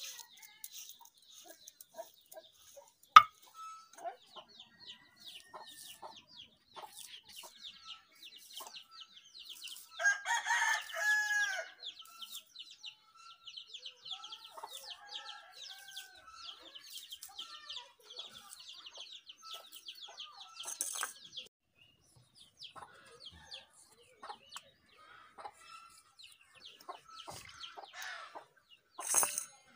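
Chickens clucking, with a rooster crowing once at about ten seconds in. A single sharp knock about three seconds in is the loudest sound, and a high, rapid chirping carries on behind for much of the time.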